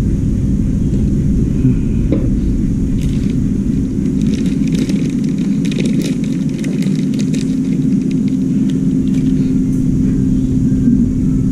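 A steady low machine rumble with a constant hum, and a scatter of light clicks and rattles through the middle.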